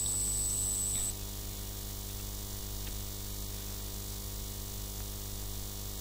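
Steady electrical mains hum and hiss, with a thin high-pitched whine that cuts off about a second in.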